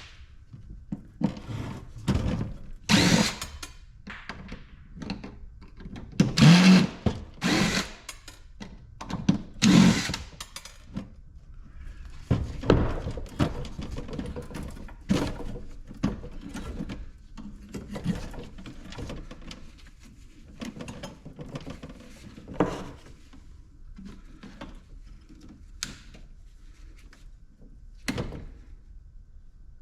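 Parts of an ice maker being taken apart with tools: irregular knocks, clunks and rattles of metal and plastic pieces. There are a few louder bursts of about half a second to a second in the first ten seconds.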